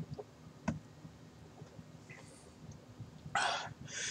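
A man breathing hard against the burn of a scorpion pepper: a single mouth click about two-thirds of a second in, then two short, hissing breaths near the end.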